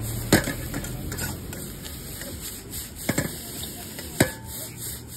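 Metal ladle stirring chow mein in a steel wok over a gas burner, scraping and striking the pan with a few sharp clanks over a steady hiss.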